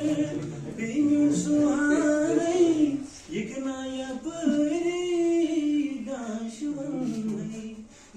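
A man singing a slow melody without accompaniment, holding long notes and decorating them with turns and bends, with brief breaths between phrases.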